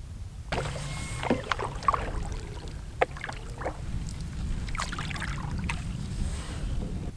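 Canoe paddling: irregular paddle splashes and knocks against the hull, over a steady low wind rumble on the microphone.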